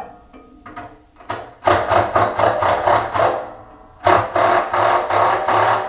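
Cordless drill/driver run in two bursts of under two seconds each, one about a second and a half in and one about four seconds in, each a rapid, even mechanical clatter.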